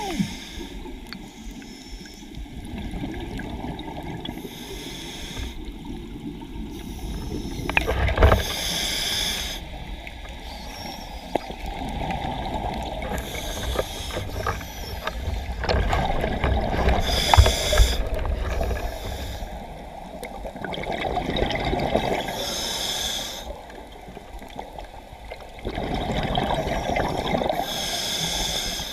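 A diver breathing underwater: a rush of inhaled air and exhaled bubbles that comes back every five or six seconds over steady water noise.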